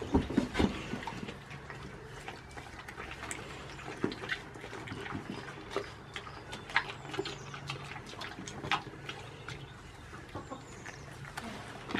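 Goats biting into and chewing crisp green vegetable slices taken from the hand: a run of short, wet crunches and clicks, with a few louder knocks in the first second.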